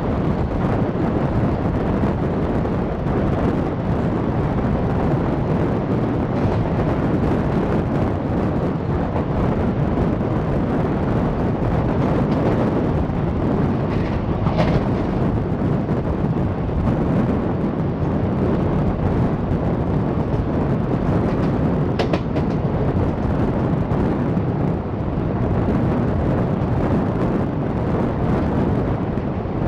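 Diesel-hauled passenger train running, heard from an open coach doorway: a steady loud rumble of wheels on the track mixed with wind on the microphone. Two brief higher-pitched sounds come through, one about halfway and one about two-thirds through.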